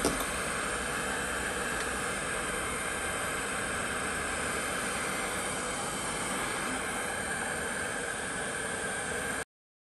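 Steady blowing hiss of a fan, with a small click at the start, cutting off abruptly near the end.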